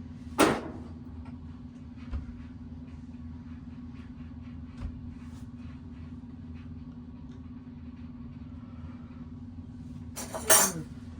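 Steady low hum of the workshop, with a sharp metallic clink about half a second in and another near the end, and a few soft knocks and small ticks between them: tools and small bicycle parts being handled on a workbench.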